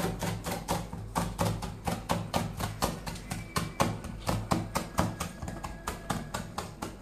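A chef's knife slicing radicchio thinly on a plastic cutting board, each cut ending in a tap on the board. The taps come in a quick, even rhythm of about four to five a second.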